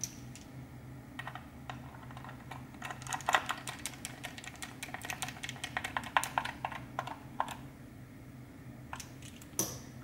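Rapid, irregular plastic clicks and taps from a mechanical keyboard being handled while its case screws are driven in with a small screwdriver. The clicks are densest in the middle, with a single sharp click near the end.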